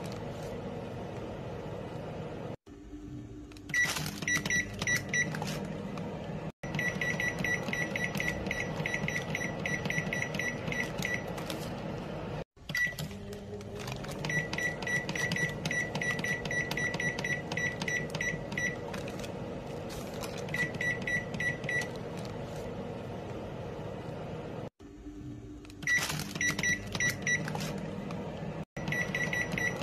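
Microwave oven control panel beeping as the cooking time is set: short, high single-pitched beeps in quick runs of several a second, with pauses between runs, over a steady low hum.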